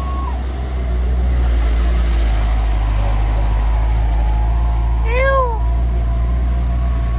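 Heavy truck engine running with a steady low rumble. A horn tone cuts off just after the start. About five seconds in, a short pitched note rises and then falls.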